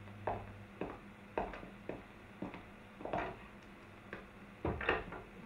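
Footsteps on a bare floor: irregular knocking steps, about two a second, as people walk across the room, the loudest pair near the end.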